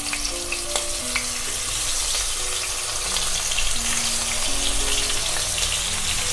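Turmeric-and-salt-coated climbing perch (koi fish) sizzling as they are laid one after another into hot mustard oil; the sizzle grows as more fish go in, with a few light clicks early on as they drop in.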